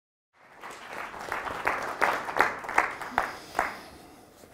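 Audience applause that starts suddenly and dies away after about three and a half seconds, with a few loud individual claps standing out from the steady clapping.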